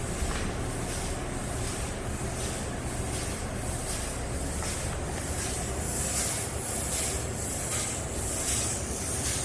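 Phytoncide disinfectant spray hissing in rapid repeated pulses, about two to three a second, over a steady low motor hum. The spraying grows louder in the second half.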